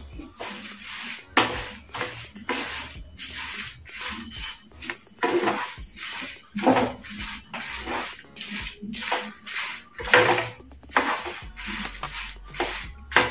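Metal slotted spatula scraping and stirring raw rice grains and dried red chillies around a non-stick frying pan as they roast, in repeated scraping strokes about once or twice a second with the dry grains rattling.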